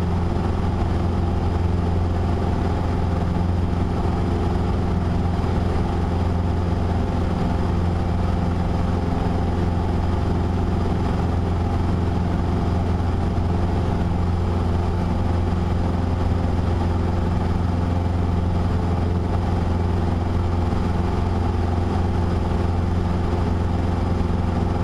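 Cessna 150's four-cylinder Continental O-200 engine and propeller droning steadily at climb power just after takeoff, heard from inside the cabin.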